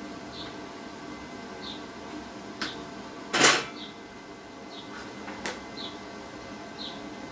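Light clicks and one louder, short metallic clunk of tools and the welding gun being handled on a steel bench, over a steady electrical hum.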